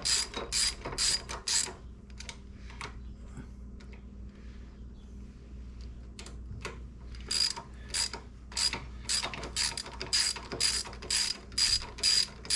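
Hand ratchet with a 5/16 Allen socket clicking as it runs bolts in, about three clicks a second. The clicking thins to a few scattered clicks for about five seconds, then picks up again about seven seconds in.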